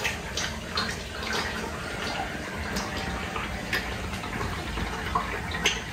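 A quart of motor oil pouring into the engine: a steady liquid stream with scattered small clicks.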